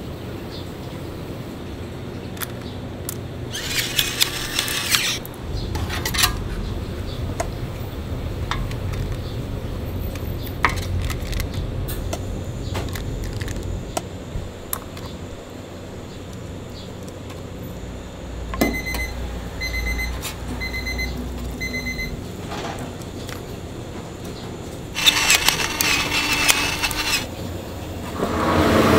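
Commercial kitchen work sounds: a steady low hum of kitchen equipment under clicks and knocks of handling, with short bursts of rustling and clatter about 4 seconds in and again near the end. About two-thirds of the way through, an electronic appliance beeps four times, about a second apart.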